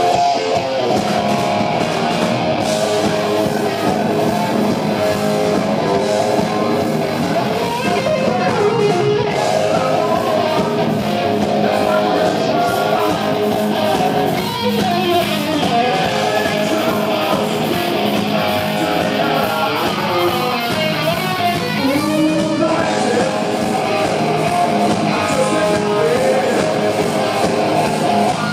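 A live rock band plays a guitar solo: distorted electric guitar with fast, bending melodic lines over bass guitar and drums.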